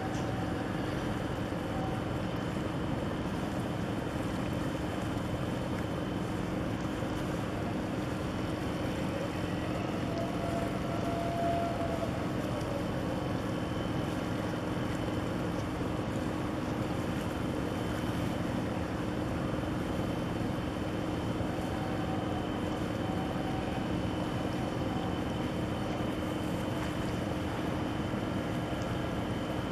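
Large container ship passing close by, its engines and machinery giving a steady low drone with a constant hum over it.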